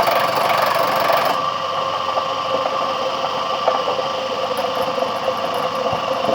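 Homemade wood lathe running with a steady motor hum and rattle.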